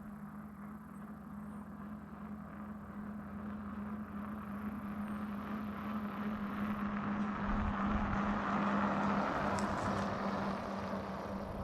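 Road vehicle noise: a steady low hum under a rushing tyre-and-road sound that swells to its loudest about eight seconds in and then eases off.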